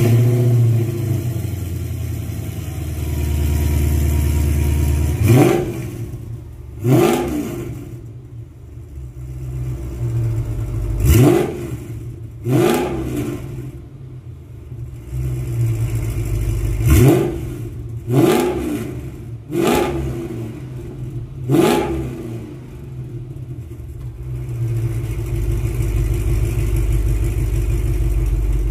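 Mercedes C55 AMG's 5.4-litre V8 idling through a custom exhaust, blipped to quick revs about eight times in twos and threes, each dropping straight back to idle.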